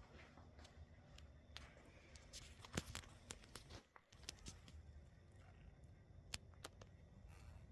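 Near silence: room tone with a few faint scattered clicks and rustles, the sharpest just under three seconds in.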